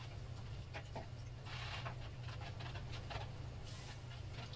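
Breaded chicken strips frying in hot oil in a skillet: a faint, steady sizzle with a few short, louder bursts, the biggest about a second and a half in, over a steady low hum.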